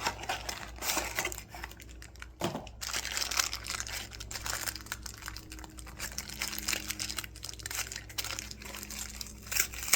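Crinkly blind-bag packaging of a mystery mini figure crackling and rustling as it is handled and opened.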